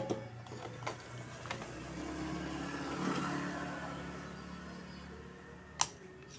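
A motor engine running, swelling about two to three seconds in and then fading away, with a sharp click near the end.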